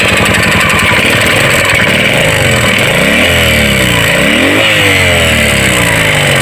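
Motorcycle engine running just after start-up, revved twice with the pitch rising and falling back. The engine is being run to check for a knock, which the mechanic blames on a replacement piston kit.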